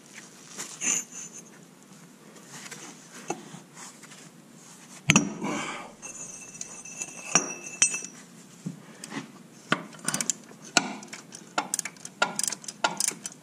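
Metal hand tools clinking and knocking against the steel hydraulic fittings of a mini excavator's final drive motor, in irregular taps. A sharp metal clank about five seconds in is followed by a short high ring, and the clinks come thicker near the end.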